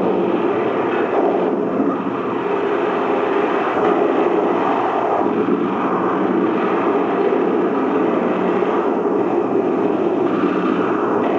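Battle sound effects from a war film's soundtrack, played over a screening room's loudspeakers: a loud, dense, steady din.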